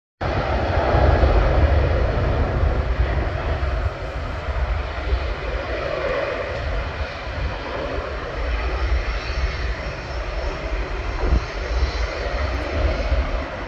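Jet aircraft engines running as a jet passes, a loud rush of noise over a deep rumble, loudest in the first couple of seconds and easing off somewhat after that.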